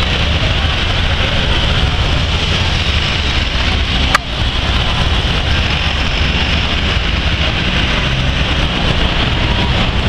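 Busy downtown street ambience: steady road-traffic rumble from passing cars and motorcycles mixed with the murmur of a large crowd of pedestrians. One sharp click just after four seconds in.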